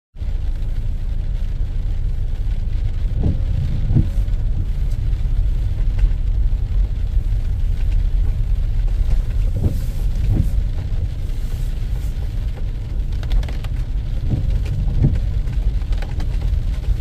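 Car heard from inside the cabin while driving slowly on a wet road: a steady low rumble of engine and tyres. Three times a pair of soft knocks comes about half a second apart.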